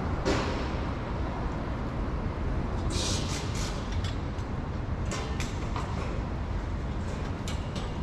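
Urban street traffic: a steady low rumble of passing vehicles, with a few short hissing bursts about three seconds in and scattered sharp clicks later.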